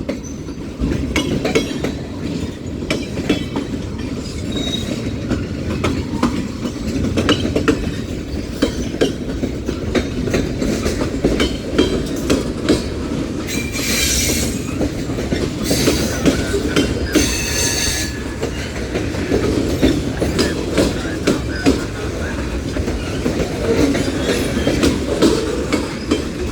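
Union Pacific mixed freight train cars rolling past: a steady rumble of wheels on rail with a constant run of clicks. Near the middle, three brief high-pitched wheel squeals.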